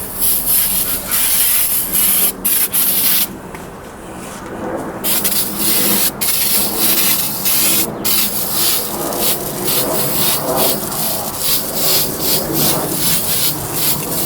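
Aerosol can of engine degreaser spraying in hissing bursts with short breaks, as the can is being emptied. After a quieter pause, rhythmic rubbing strokes, a few a second, run on through the rest.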